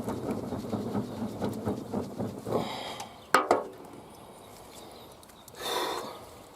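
Crackling and rustling of firewood and kindling being handled for a campfire, dense for the first couple of seconds. Then a single sharp click comes about three and a half seconds in, and a short rushing noise near the end.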